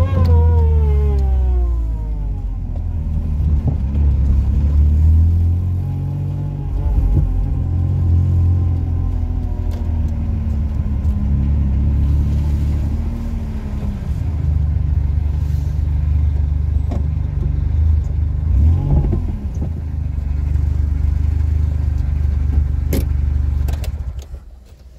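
Supercharged Daewoo Matiz three-cylinder engine heard from inside the cabin, its revs falling away in the first couple of seconds, then running at low speed with a steady low drone that rises and falls gently. A couple of sharp clicks come near the end, and the engine sound drops away just before the end as the car is switched off.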